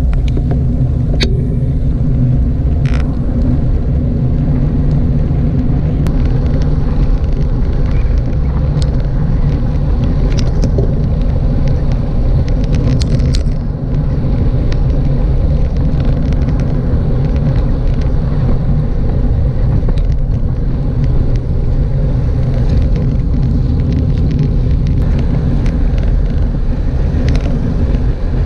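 Steady low rumble of wind and tyre noise on a camera riding on a road bike, with a few short clicks and knocks from the bike and road.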